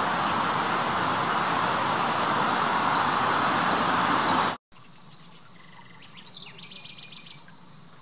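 A loud, steady noise, like road traffic, cuts off abruptly a little over halfway through. After it, a small bird gives a couple of thin high notes and then a quick run of about seven short notes, over a faint steady insect buzz.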